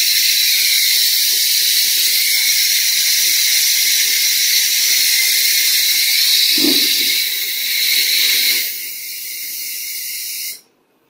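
Compressed air hissing steadily from an ACF bonding machine's pneumatic press during its automatic bonding cycle. The hiss drops to a lower level about nine seconds in and cuts off suddenly near the end, with a brief soft thump midway.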